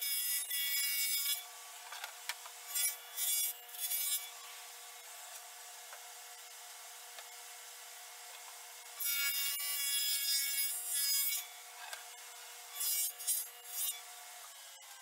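Table saw with a dado stack cutting grooves in plywood shelves: four cuts of one to two seconds each, with the saw running steadily between them.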